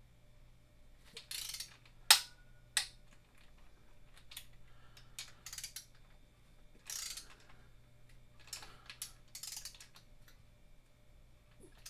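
Hand ratchet clicking in short bursts as it turns the motor mount bolts on a Ford 5.4 V8 block, with two sharper metal clicks about two seconds in.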